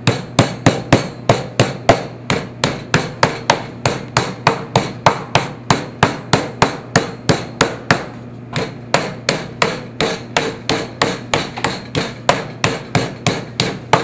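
Metal meat tenderizer mallet pounding raw chicken breast flat on a plastic cutting board: a steady run of sharp strikes, about three a second, easing briefly about eight seconds in.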